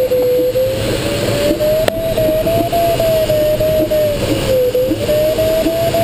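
Glider's audio variometer sounding one continuous tone that slowly falls, rises and dips again in pitch, its pitch following the rate of climb while circling in a thermal, over the steady rush of air around the cockpit.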